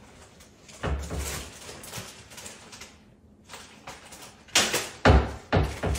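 Knocks and thumps of a cat scrambling down out of a kitchen wall cabinet onto the metal top of a toaster oven: one knock about a second in, then a cluster of three louder thumps near the end.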